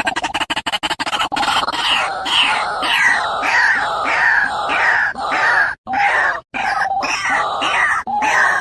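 White-breasted waterhen calling: a fast pulsing run gives way, a little over a second in, to loud repeated harsh croaking notes, about three a second.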